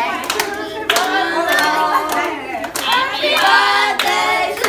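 A group of children and women singing a birthday song together, with hands clapping along.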